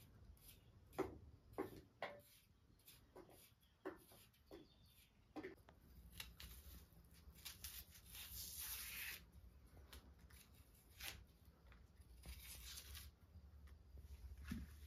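Faint sounds of potatoes being peeled and cut by hand with a small knife: a series of light clicks and taps from the blade in the first few seconds, then longer scraping strokes as the skin is pared off.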